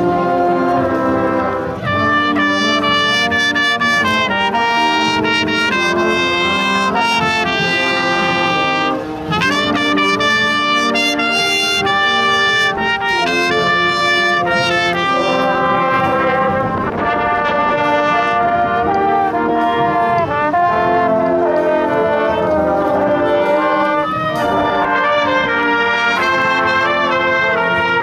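School marching band playing live, led by brass (trumpets, trombones and sousaphones) with saxophones and clarinets, the notes changing continuously.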